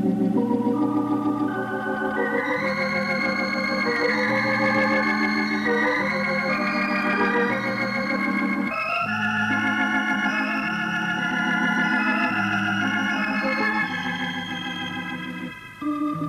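Background music on an electric organ, Hammond-style: sustained wavering chords over a slow-moving bass line, dipping briefly near the end before carrying on.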